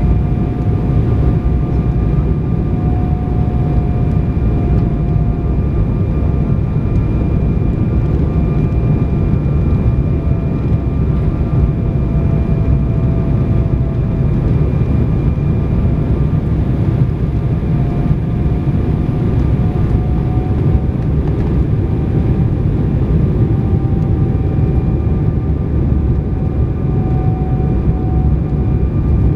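Airliner cabin noise on approach: the steady roar of the jet engines and rushing air heard from inside the cabin, with a faint whine that wavers slightly in pitch.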